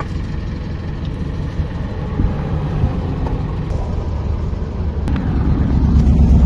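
Motorhome engine running with a low rumble, growing louder with a throbbing pulse about five seconds in.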